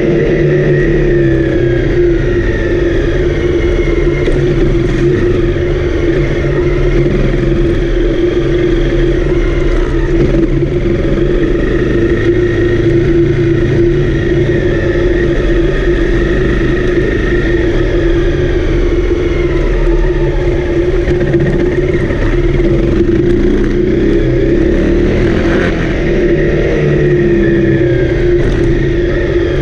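Honda CRF250L's single-cylinder four-stroke engine running steadily under way, its pitch slowly rising and falling with the throttle.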